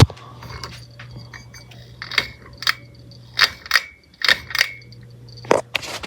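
Ceiling fan with a steady low motor hum, over which comes an irregular series of sharp clicks and clinks, some with a brief metallic ring.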